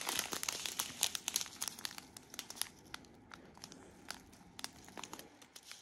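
A strip of clear plastic bags of diamond painting resin drills crinkling and crackling as it is handled. The crackles are dense for the first few seconds, then thin out to scattered ones.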